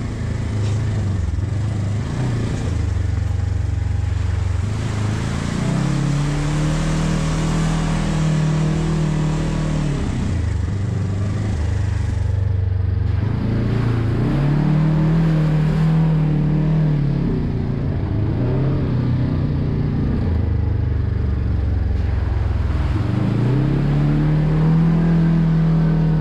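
Side-by-side offroad buggy's engine heard from inside the cab, revving up and holding, then dropping back, three times over as it drives the sandy offroad track, with rattling from the chassis.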